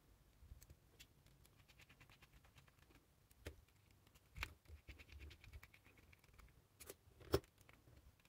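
Faint scraping and light ticking of a screwdriver turning small screws into the metal gear head housing of an angle grinder, with a few sharper clicks, the loudest near the end.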